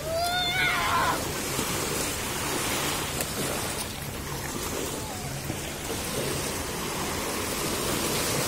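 Small sea waves washing up onto a sandy shore, a steady rush of water. A short high call, rising then falling, sounds right at the start.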